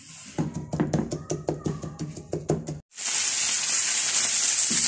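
A quick, even run of taps over a low steady hum, then after a sudden cut, loud steady sizzling of chicken qeema frying on a tawa on full heat as it is stirred.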